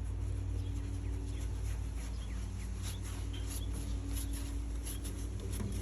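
Outdoor background: short, scattered bird chirps over a steady low hum.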